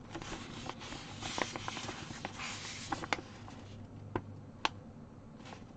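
Soft rustling of a paper cross stitch chart being handled, with several light, sharp clicks scattered through it and a faint steady low hum underneath.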